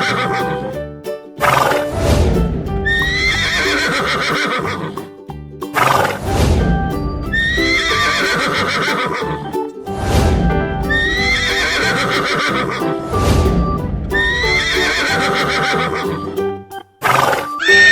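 Horse whinnying over upbeat cartoon music, repeated about every four seconds, five times in all, each whinny a falling call. A brief sweeping sound comes between whinnies.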